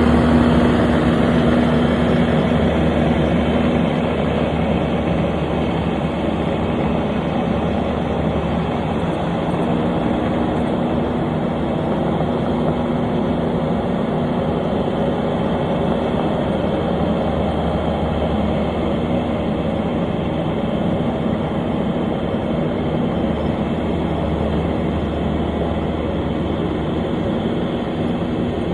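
Engine of a heavy construction machine running steadily under operation, a continuous hum with a strong low tone that dips for a few seconds early on and comes back.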